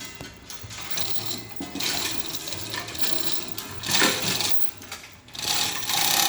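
Workshop machinery running in spells, with a low hum that starts and stops and louder bursts of noise about four seconds in and again near the end.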